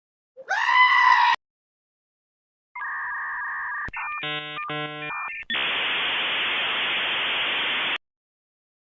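A brief pitched vocal cry, then electronic sounds: a steady two-tone beep, a quick sequence of switching tones, and a steady hiss that cuts off suddenly.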